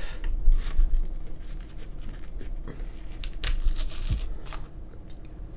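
An eggnog carton being handled just after it was forced open: scattered crinkling and light knocks.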